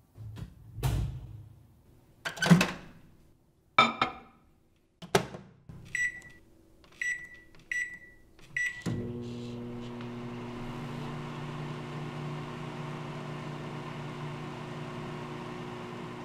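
Several door clunks, then four short beeps from a microwave oven's keypad about a second apart, and the microwave starting up about nine seconds in with a steady hum.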